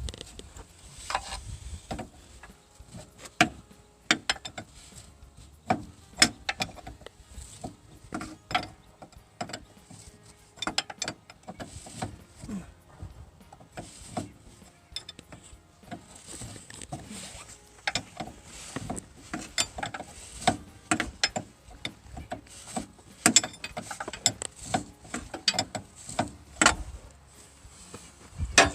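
Irregular sharp metal clicks and knocks of hand tools and hydraulic hose fittings being handled, with a louder knock right at the end.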